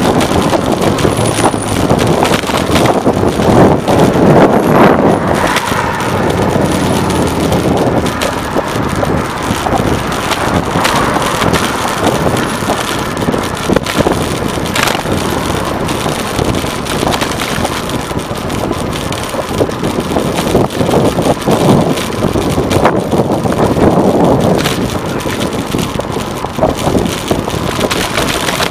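Wind rushing over the microphone of a camera riding on a moving bicycle, with road rumble and small knocks as the bike rolls over the pavement.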